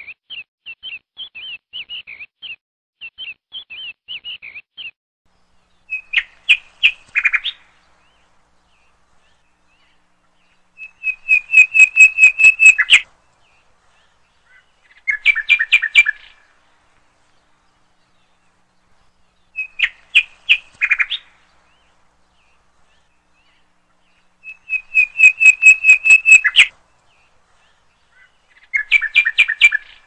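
Soft, rapid peeping of a pen of young chicks for the first five seconds. Then loud bird calls come in six bursts of quick repeated notes, each a second or two long. The same three bursts repeat about thirteen seconds apart.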